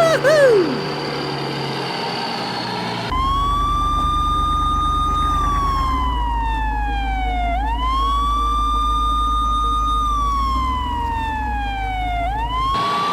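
Police car siren wailing over a steady low engine hum, starting about three seconds in: each cycle rises to a held high note, then falls slowly, twice over.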